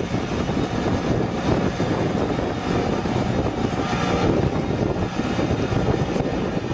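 Rice transplanter running steadily with a continuous engine and machinery noise.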